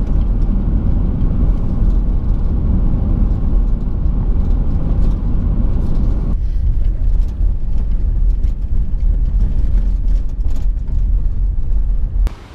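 Wind buffeting a camera mounted on the outside of a moving car, mixed with road and tyre noise: a loud, steady low rumble. It thins out a little about six seconds in and cuts off suddenly near the end.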